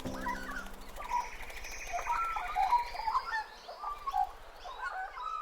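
Birds singing, many short warbling calls overlapping, with the tail of music fading out in the first second.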